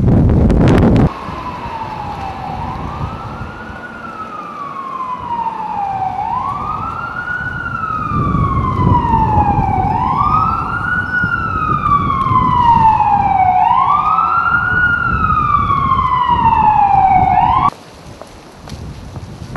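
Emergency vehicle siren wailing, each cycle rising quickly and falling slowly about every four seconds, over wind rumbling on the microphone. Loud wind noise fills the first second, and the siren cuts off suddenly near the end.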